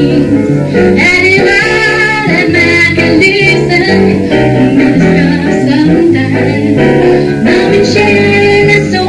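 Live jazz-soul song: a vocal line over double bass and piano, the bass moving in stepping notes beneath the singing.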